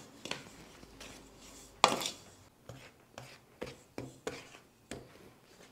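Wooden spoon stirring a dry flour, sugar and cocoa mixture in a stainless steel bowl: a series of soft scraping strokes about every half second, with one louder knock about two seconds in.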